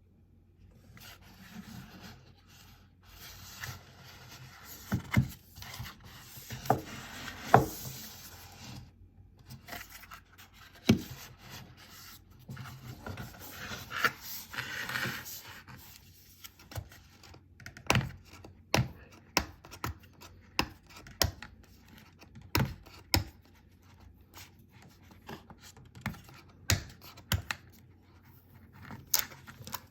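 Product packaging being handled and opened by hand: rubbing, scraping and rustling in the first half, then a run of sharp clicks and taps, one or two a second.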